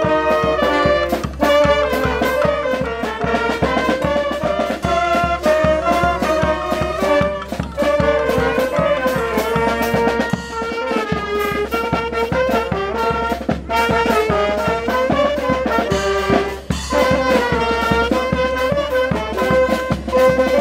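Lively brass band music with a steady beat.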